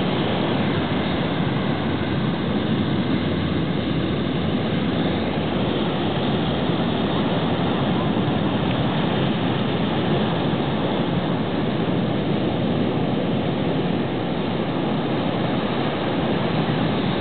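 Heavy shorebreak surf breaking and churning into white water, a steady, unbroken rush of noise.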